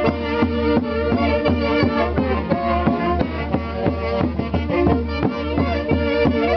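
A band playing traditional music, with a violin lead over a steady beat and bass.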